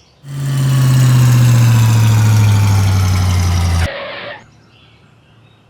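An engine running with a loud, steady hum whose pitch slowly falls, cutting off abruptly after about three and a half seconds.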